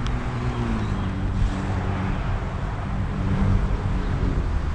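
Wind buffeting the microphone and tyre rumble from a bicycle riding along a concrete path, with a faint hum underneath.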